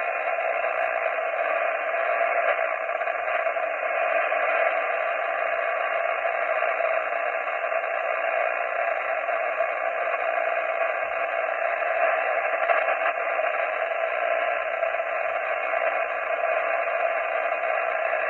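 HF amateur radio transceiver's receiver hissing with steady band noise, held to the narrow voice passband of single-sideband reception, with no station coming through: the operator is listening for replies between CQ calls.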